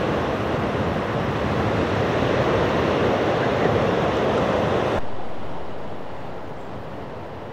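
Small waves breaking and washing up on a sandy beach, with wind on the microphone. About five seconds in, the sound drops suddenly to quieter surf.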